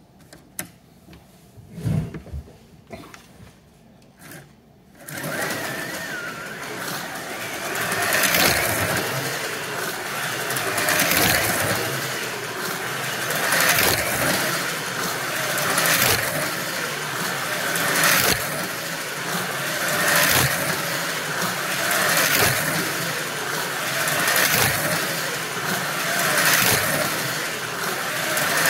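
Wizard Storm Extreme HO slot car's small electric motor whining as the car laps the track under power, swelling each time it passes close, about every two and a quarter seconds. Before it sets off, about five seconds in, there are a few light knocks.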